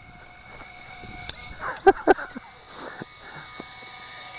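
Tiny fidget-spinner quadcopter's motors whining steadily in flight, a high-pitched buzz, with a sharp click and then two short knocks about two seconds in.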